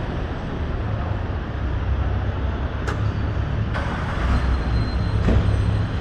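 Urban road traffic: a steady low rumble of passing vehicle engines and tyres, with a sharp click about three seconds in and a brief hiss a second later.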